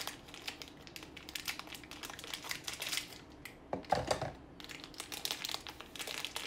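Thin plastic packaging crinkling as it is handled and pulled open by hand, a run of short, irregular crackles, with a heavier bump about four seconds in.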